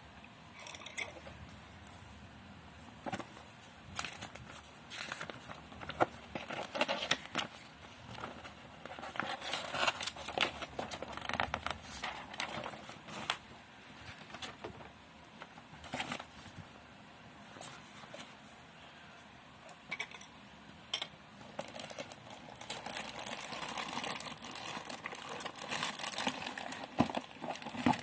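Packaging being handled during an unboxing: irregular crinkling and rustling, with scattered sharp clicks and knocks throughout.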